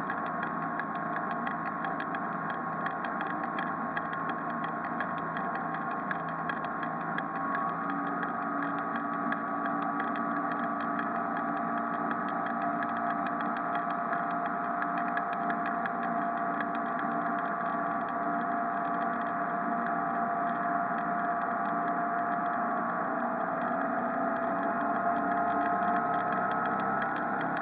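Original MerCruiser 140 hp 3.0-litre inline-four inboard engine of a 1978 Draco 20 daycab running steadily as the boat cruises at low speed. It gets a little louder near the end.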